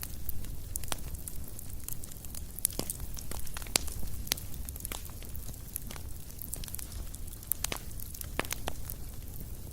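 Fire crackling: irregular sharp pops and snaps, several a second, over a steady low rumble.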